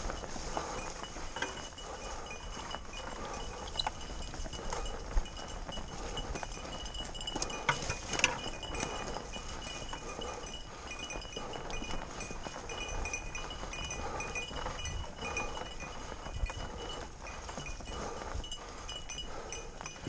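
Fat bike riding over a trail of dry fallen leaves: tyres crunching through the leaves with scattered clicks and rattles, and a few sharp knocks near the middle. A faint, steady high ringing runs underneath.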